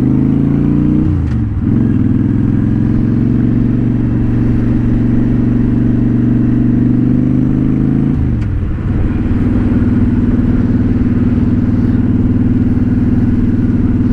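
Honda Shadow Spirit 750 V-twin motorcycle engine running under way at a steady pull. Its note drops sharply in pitch twice, about a second in and about eight seconds in, as the revs fall, then holds or climbs again.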